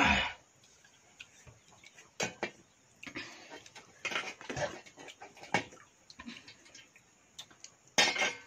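People eating watered rice by hand from steel bowls: slurping and mouth sounds, with the occasional clink of steel bowls and plates. A loud slurp from drinking out of a bowl comes right at the start, and another loud mouth sound comes near the end.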